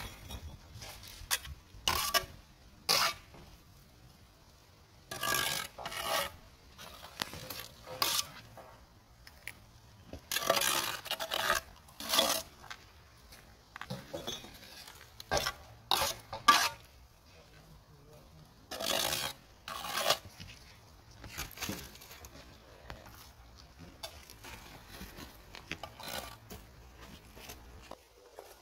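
Bricklaying work: a steel trowel scraping and spreading mortar and tapping on the bricks, in irregular short clinks and scrapes of up to about a second, with quiet gaps between them.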